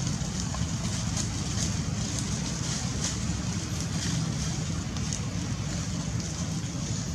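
Wind buffeting the microphone: a steady low rumble with hiss, and a few faint ticks.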